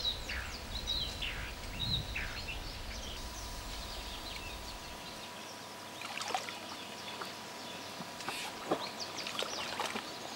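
Small birds chirping in short falling notes over the first couple of seconds, then scattered water sloshes and drips as a Galápagos giant tortoise moves in a muddy pond.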